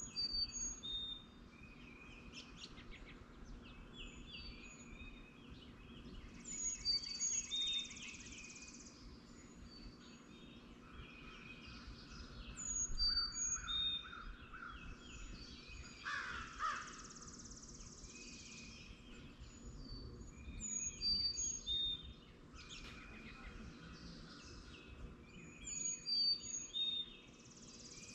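Morning chorus of several songbirds, with repeated short high whistled notes and trills throughout, and a crow cawing twice about halfway through.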